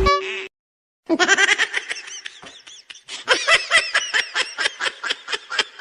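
Laughter in a long run of quick 'ha-ha' bursts, starting about a second in after a short gap; just before it a brief steady tone cuts off.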